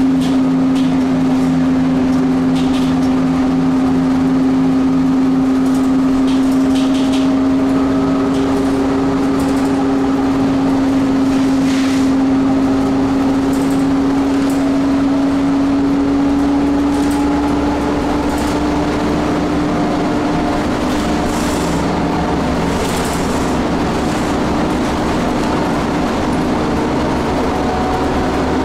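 Nova Bus transit bus driving at road speed, heard from inside the cabin near the front: a steady drivetrain hum over engine and road noise, with a few brief rattles. The hum rises slightly in pitch about two-thirds of the way through, then fades into the general running noise.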